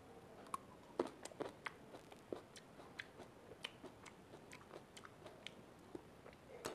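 A person chewing a long green grape, heard up close: quiet, irregular crunches and mouth clicks, the sharpest about a second in.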